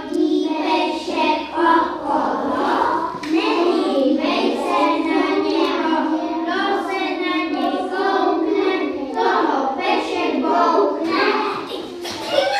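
A group of young children singing a game song together.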